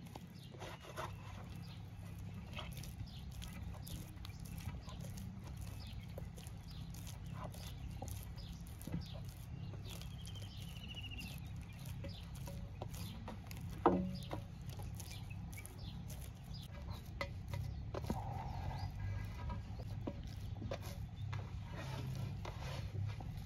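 Hands kneading soft dough in a steel basin: soft slaps, squishes and small knocks against the metal, with one sharper knock a little past the middle. Animal calls and a bird's short falling whistle sound faintly in the background.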